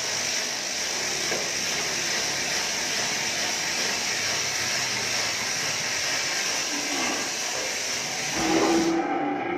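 A steady, loud hiss that cuts off suddenly near the end, with a short pitched call just before it stops.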